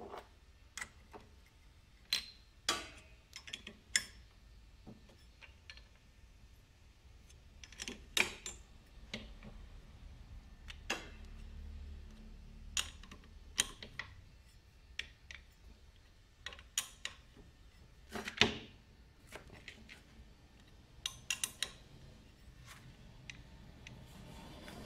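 Irregular metal clicks and clinks from a scooter's CVT drive pulley and its centre nut being handled: the pulley is seated on the shaft, the nut is threaded on by hand and a socket is set over it.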